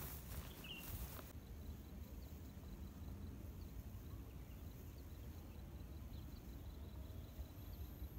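Footsteps swishing through tall grass for about the first second, then a quiet outdoor background: a low rumble with faint, scattered short chirps.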